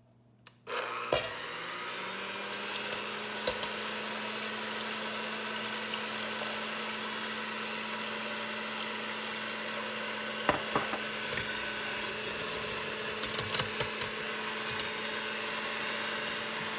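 Electric hand mixer switched on about a second in, then running steadily with a hum as its beaters whisk milk into beaten eggs in a stainless steel bowl. A few clicks near the middle and later.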